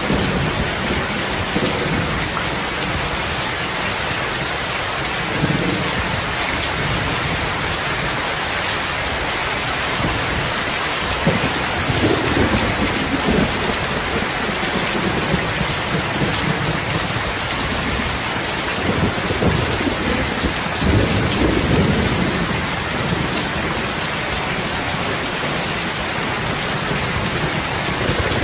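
Heavy rain falling in a steady, even hiss, with low rumbles of distant thunder swelling several times, at about five seconds, around twelve seconds and again around twenty seconds in.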